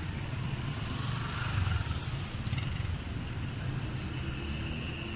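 City street traffic: a steady low rumble of passing vehicles, swelling briefly about a second in.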